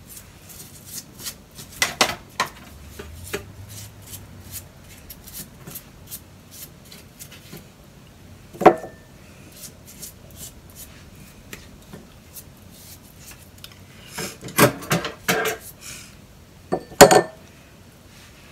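Metal kitchenware clattering in a stainless steel sink: a roasting tray and utensils knock and clink while a raw pig's head is handled on the tray, with small clicks throughout and a few sharp knocks, the loudest about nine seconds in and a cluster near the end.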